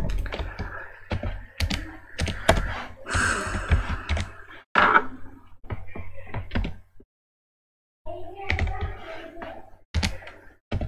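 Keys typed on a computer keyboard: irregular clicks and knocks, pausing for about a second partway through.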